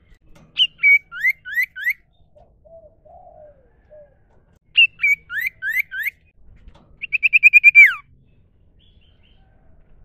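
Iora (sirtu/cipoh) singing: two phrases of a few sharp, rising whistled notes, then a fast trill of about eight notes that ends in a falling slur.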